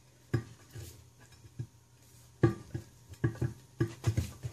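Metal tools knocking and clinking against a mower wheel's steel rim while a tyre is being worked off it, about ten irregular clanks, coming faster in the second half.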